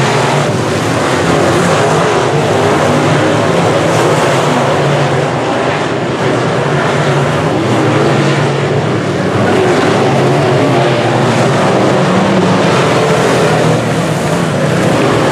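A field of semi-late model dirt track race cars running hard around the oval, their V8 engines making a steady loud drone whose notes waver up and down.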